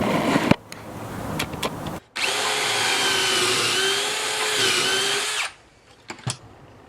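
A power drill running at a steady speed for about three seconds, its whine wavering slightly in pitch before it stops suddenly. Before it there is a couple of seconds of rustling handling noise, and after it a few light knocks.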